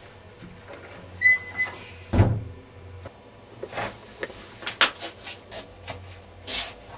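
A door squeaks briefly, then shuts with a heavy thump, followed by scattered knocks and clatter.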